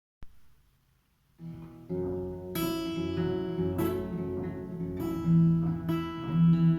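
A single click, then an acoustic guitar starts playing about a second and a half in, with chords struck roughly once a second.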